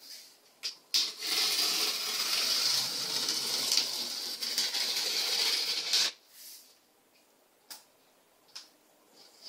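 Utility knife blade drawn along the taped seam of a cardboard box, slicing through the packing tape in one continuous scratchy cut lasting about five seconds, with a few small clicks before and after it.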